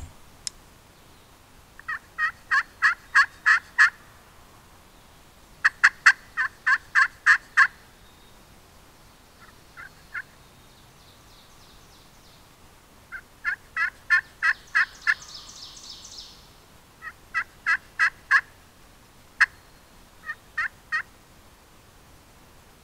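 Turkey yelping: several runs of five to eight evenly spaced yelps, about four a second, with pauses between the runs and a few shorter bursts near the end.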